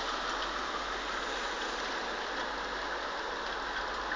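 Thunderstorm rain falling steadily, an even hiss with no breaks.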